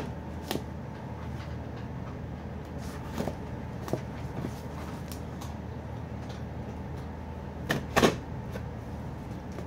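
A small cardboard box being handled and cut open: scattered scrapes, taps and knocks of cardboard, the loudest pair about eight seconds in, over a steady low hum.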